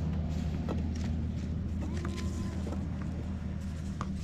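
A motor vehicle's engine running with a steady low drone, with a few faint clicks over it.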